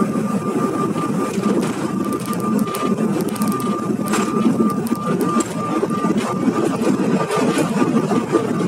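Cabin noise of a Bombardier CRJ1000 jet landing: a steady rumble of engines and airflow with a thin high whine, and a spell of rattles and clicks between about two and four seconds in as the wheels touch down and the ground spoilers deploy.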